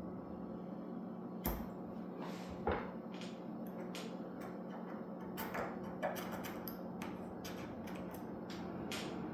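Scattered small clicks and taps, about a dozen at uneven intervals, over a steady low hum: fingers and a small tool working at the glued-on camera lens cover of a phone.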